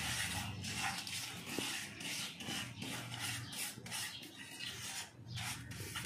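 A wooden spatula stirring and scraping sesame seeds around a dry non-stick frying pan as they roast, in repeated rasping strokes a few a second.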